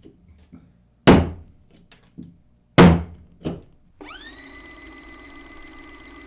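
Folding knife swung hard into wood: two heavy thunks about a second apart, the second followed by a lighter knock. After about four seconds a steady droning tone with several fixed pitches sets in and holds.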